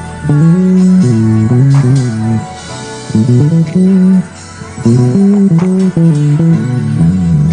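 Five-string electric bass played fingerstyle, picking out a melody in phrases of notes that slide into one another, with two short pauses between the phrases.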